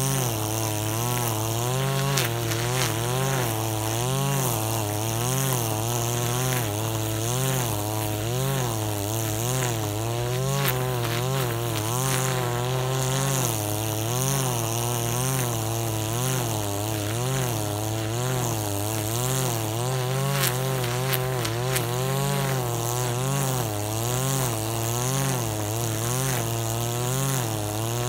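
KAAZ URP260AL-TB26 25cc brush cutter running while cutting grass, its engine pitch rising and falling about once a second as the load changes, with a few sharp ticks from the cutting head.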